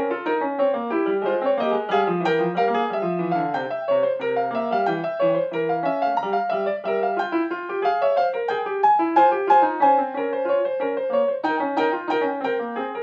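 Grand piano played solo: a fast, unbroken stream of notes, with a few louder accented notes about nine seconds in.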